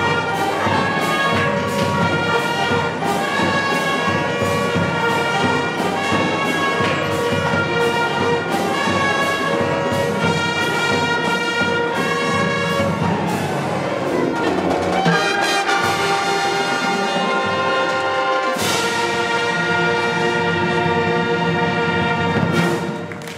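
Marching band playing the closing bars of its show: brass and woodwinds in full held chords over a steady drum beat of about two strokes a second. A loud final chord comes in about three-quarters of the way through and is cut off just before the end.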